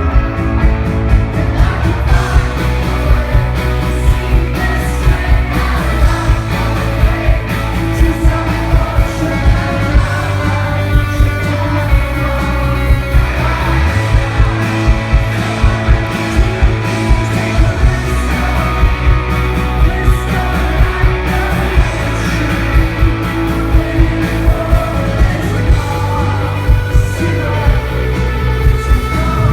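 Rock band playing live with lead vocals, drums keeping a steady beat under bass and guitars. About 13 seconds in, the low end briefly thins out before the full band comes back in.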